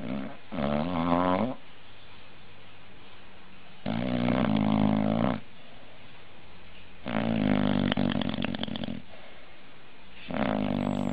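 A sleeping animal snoring: four rhythmic snores about three seconds apart, each a low pitched drone with a rattle, lasting one to two seconds.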